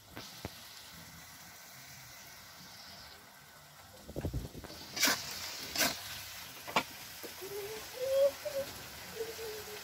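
Grasshoppers sizzling in oil in an iron wok, with a faint steady hiss. Around the middle a metal spatula stirs and scrapes against the wok, with two sharp strikes about a second apart and a lighter click. Near the end come two short wavering pitched sounds.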